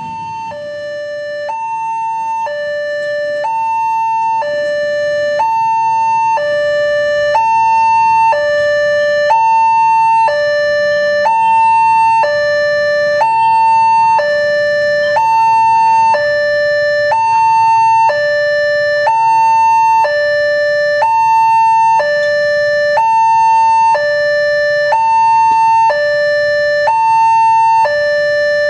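Railway level-crossing warning alarm sounding: an electronic two-tone signal alternating between a higher and a lower tone about once a second. It grows louder over the first several seconds, then holds steady.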